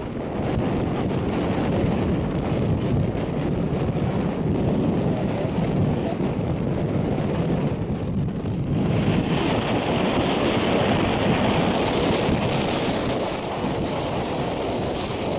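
Wind buffeting the microphone: a steady, low rumbling noise that turns brighter and hissier for a few seconds past the middle.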